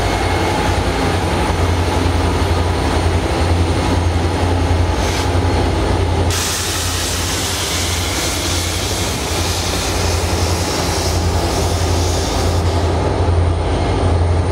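Norfolk Southern SD40E rear helper locomotives' diesel engines running with a steady low drone, over the rumble of wheels on rail. A brighter hiss comes in about six seconds in and falls away shortly before the end.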